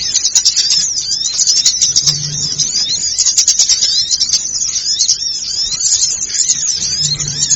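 Many small birds chirping and twittering at once, a dense, unbroken chatter of quick high notes sliding up and down: a noisy bird-lure recording meant to draw in small birds.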